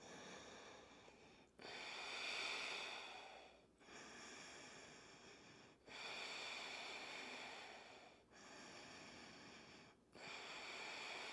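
A woman breathing slowly and audibly in and out through her nose: six hushed breaths of about two seconds each, inhales and exhales alternating with brief pauses between them.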